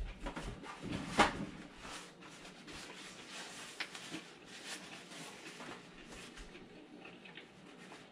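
A man chewing a mouthful of sandwich, with small clicks and rustles of handling and a paper towel. One sharp knock about a second in.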